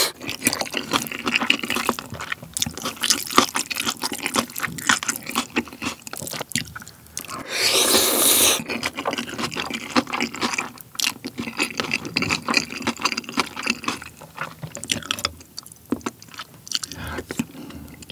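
Close-miked slurping and chewing of jjajangmyeon noodles in black bean sauce. There is one long, loud slurp about seven to eight and a half seconds in, and wet chewing with many small mouth clicks around it.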